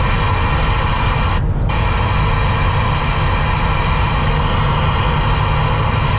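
Semi truck's diesel engine and road noise at highway speed, heard from inside the cab as a steady, loud low drone with a hiss above it. The hiss drops out briefly about a second and a half in.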